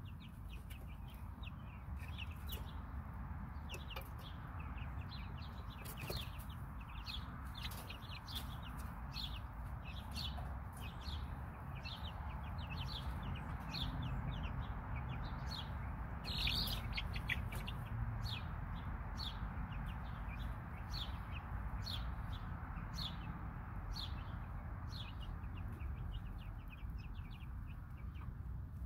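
Young chicks peeping: short, high, slightly falling peeps repeated about once or twice a second, over a steady low rumble.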